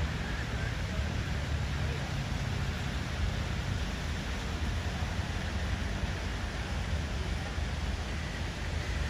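Steady rushing splash of a large fountain's jets falling into its stone basin, over a constant low rumble.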